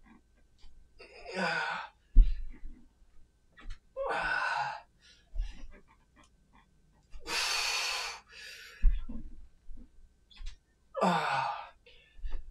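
A man's heavy breathing under exertion while swinging a clubbell through alternating forward lunges: four forceful breaths, each just under a second long, about three seconds apart, the third the longest. A short low thud follows each breath, as a foot lands in the lunge.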